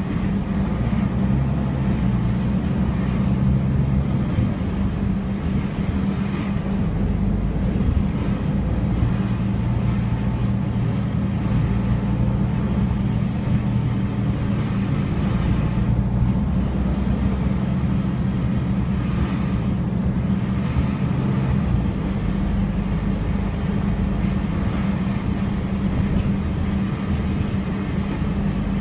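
A MAN Lion's City city bus driving along, heard from inside the passenger cabin: a steady engine hum and road noise, with the lower engine tone shifting in pitch a few times.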